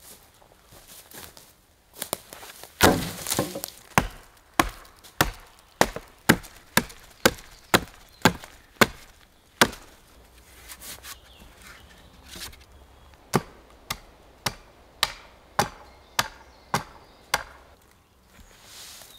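Hatchet blows on a wooden pole, chopping its end to a point against a rotten log: sharp knocks at about two a second, in two runs with a pause of a few seconds between them.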